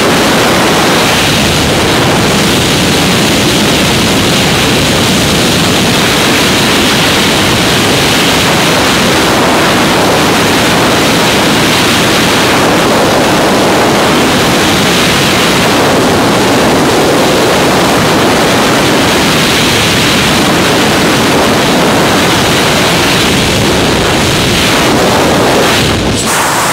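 Freefall wind rushing over the camera microphone in a tandem skydive: a loud, steady, even roar of buffeting air. Near the end it drops and turns choppy.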